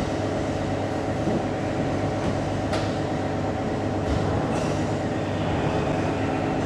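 Steady mechanical drone of a car ferry's machinery, a mix of low hums, heard inside the enclosed car deck. A faint click comes about two-thirds of the way through.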